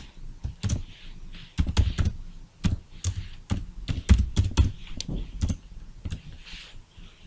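Typing on a computer keyboard: sharp keystroke clicks in short, irregular runs with brief pauses.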